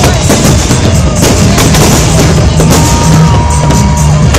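Aerial fireworks display: rapid, overlapping shell bursts and crackling, with music playing loudly underneath.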